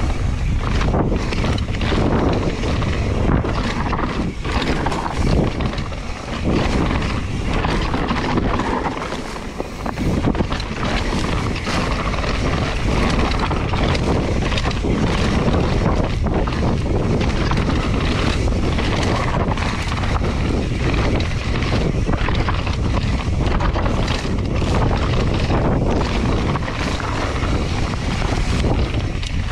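Wind buffeting the microphone of a camera on a mountain bike rider riding fast down a rocky dirt trail, over a steady rumble of the knobby tyres on dirt and gravel. Frequent short knocks and rattles come from the bike jolting over rocks and bumps.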